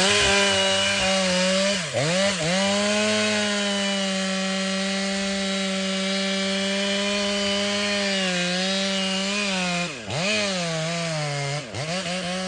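STIHL MS500i fuel-injected two-stroke chainsaw running at high revs, cutting into a beech trunk. Its pitch dips and recovers briefly about two seconds in and twice near the end.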